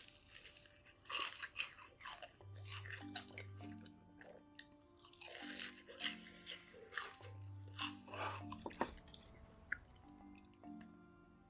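Close-miked crunchy chewing and biting of food in clusters of crackly bites, over background music with a repeating low bass pattern.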